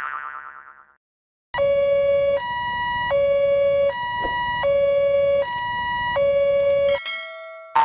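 Cartoon level-crossing alarm sounding as a synthesized two-tone hi-lo siren, like an ambulance's, switching between a low and a high note about every three-quarters of a second, seven notes in all. A springy boing fades out in the first second, and another starts right at the end.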